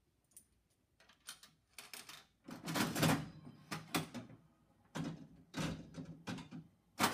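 Mills Golf Ball vendor slot machine being played: a few light clicks as quarters go in, then the handle is pulled and the all-mechanical works clatter as the reels spin and clunk to a stop in several separate knocks, ending on a sharp click. The reels land on two cherries, a winning pull.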